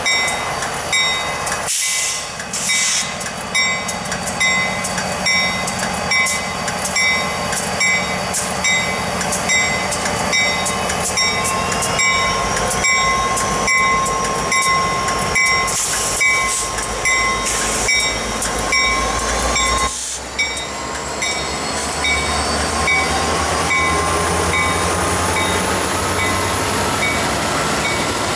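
Norfolk Southern diesel freight locomotives passing close by, their engines' deep rumble growing heavier about halfway through as the lead units go past. Wheels click over the rail joints, and several thin tones rise in pitch in the second half.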